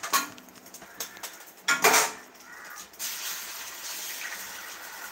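Kitchen clatter as an egg is cracked against a pan or bowl: a few light knocks, then a louder clatter about two seconds in. A steady hiss follows from about three seconds in.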